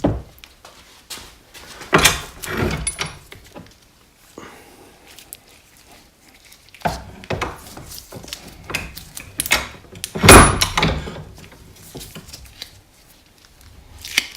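Workshop handling noise: a few heavy metal clunks and knocks as a motorcycle fork leg in a fork clamp is set into a bench vise and worked on, with scraping and rustling in between. The loudest clunk comes about ten seconds in.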